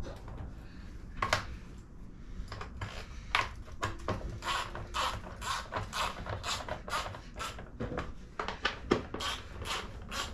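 Hand tool working on a mini dirt bike: short sharp metallic clicking strokes, a few scattered at first, then an even run of about two a second from about four seconds in.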